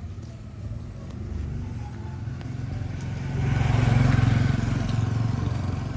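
A motor vehicle passing by: engine hum and tyre hiss swell to their loudest a little past halfway, then fade.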